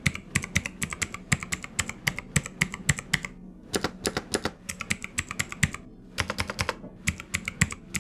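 TVS Gold Prime mechanical keyboard with red Long Hua switches being typed on quickly: a fast run of keystrokes in bursts, broken by a few short pauses.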